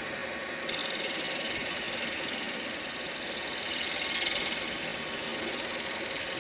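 Midi lathe running while a turning tool cuts a spinning acrylic pen blank. There is a high scraping hiss with a whistling edge that starts about a second in and swells and fades as the tool works the blank.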